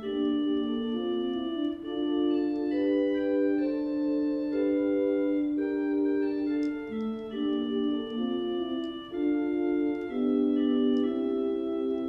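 Allen digital organ playing a hymn-tune arrangement in held chords, the notes changing every half second to two seconds, mostly in the middle register with no deep bass.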